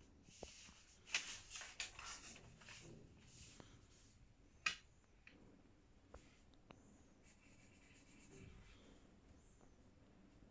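Pencil scratching and rubbing on paper in faint, short strokes, mostly in the first few seconds, with a sharp tick about four and a half seconds in.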